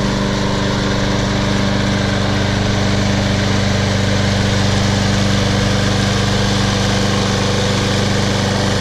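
Briggs & Stratton engine of a Snapper 21-inch walk-behind lawn mower running steadily at a constant speed.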